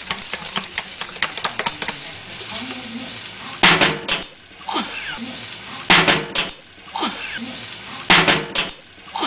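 Utensil clinking and scraping against a frying pan as mustard goes in with frying chicken and onions: quick small clicks at first, then three louder bursts about two seconds apart.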